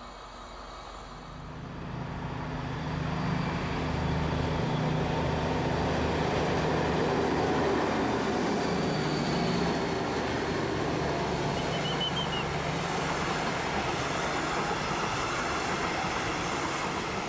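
Two DB Class 218 diesel-hydraulic locomotives running in double traction, their engines growing louder over the first few seconds as they approach and pass. The steady rumble of the loaded car-transport wagons rolling by follows.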